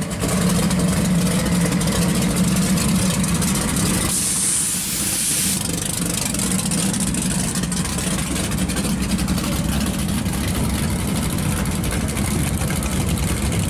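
Open-engine hot rod V8 in a late-1960s Plymouth Barracuda running with a loud, lumpy idle and rolling off slowly at low throttle, joined near the end by another V8 car rolling up. A brief hiss comes about four to five seconds in.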